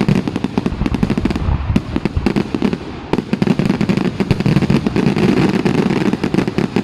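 Fireworks going off in a dense barrage: many sharp bangs and cracks a second, overlapping without a break.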